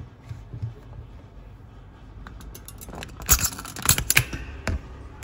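A quick cluster of clicks and knocks in the second half, loudest twice near the middle: handling noise as the camera is picked up and moved off its overhead position.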